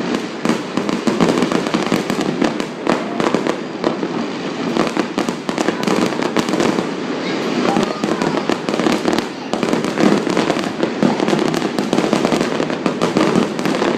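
Fireworks display: a dense, unbroken run of bangs and crackles, many reports a second.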